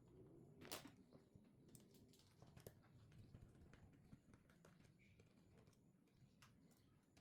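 Near silence with faint, scattered clicks and taps, the sharpest about a second in and a few more in quick succession soon after: small tools and parts being handled while a phone is taken apart.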